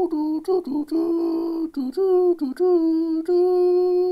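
A voice humming a wordless tune as a commercial-break jingle, in a string of short notes and longer held ones with brief gaps between them.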